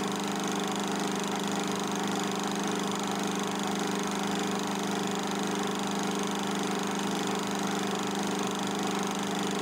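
Film projector running: a steady, even machine hum with hiss underneath.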